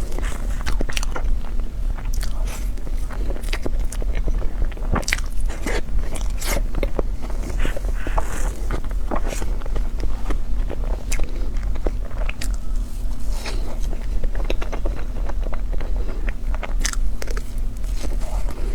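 A person eating close to the microphone: biting and chewing, heard as many short, irregular clicks over a steady low hum.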